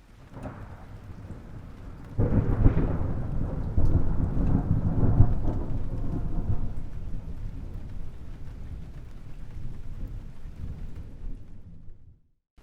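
Thunder: a low rumble swells into a sudden clap about two seconds in, then a long rolling rumble that slowly fades over about ten seconds.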